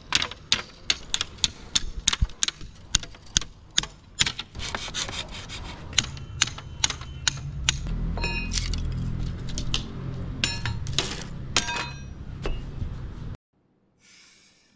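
A hammer striking and splitting a bamboo pole into thin strips: a fast run of sharp knocks and cracks, two or three a second, then a lower scraping and rasping of the bamboo with fewer knocks.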